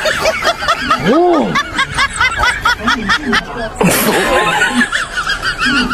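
Cartoon-style snickering laugh effect: rapid high-pitched giggles repeating about four or five times a second, with one longer, lower rising-and-falling note about a second in.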